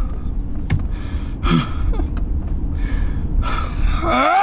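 Heavy, gasping breaths from a distressed person over a steady low rumble, then near the end a wailing cry that rises and falls in pitch.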